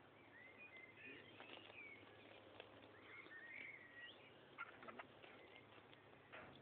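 Faint birdsong, short warbling calls coming and going, with a few light clicks scattered through.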